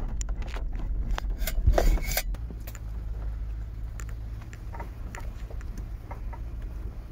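Toyota 4Runner crawling over a rough, muddy trail: a steady low rumble of engine and tyres, with loose gear clinking and rattling in the cabin as the truck bounces, loudest in a clatter about two seconds in.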